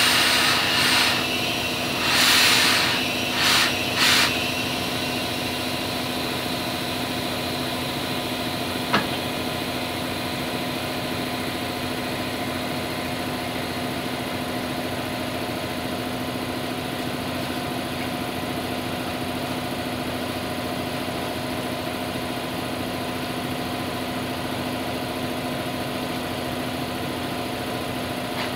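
Several short bursts of compressed air hissing from a tire machine's inflation hose in the first four seconds. After that a steady machine hum holds an even pitch, with one sharp click about nine seconds in.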